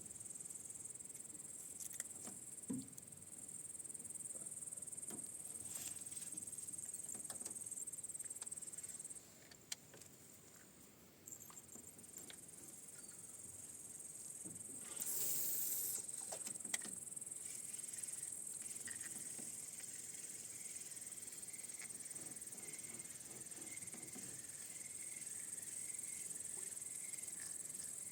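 Crickets or grasshoppers chirring in a high, steady band. The chirring breaks off about nine seconds in and picks up again two seconds later. A few faint knocks and a short rush of noise come about fifteen seconds in.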